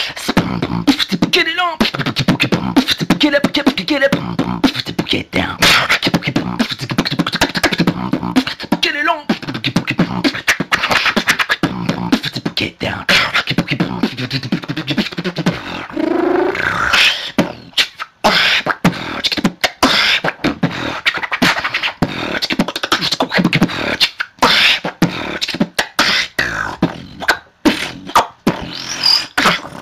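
Solo beatboxing: fast vocal-percussion patterns of kick-, snare- and hi-hat-like sounds mixed with hummed or sung melodic lines and pitch glides, with brief breaks about 18 and 27 seconds in.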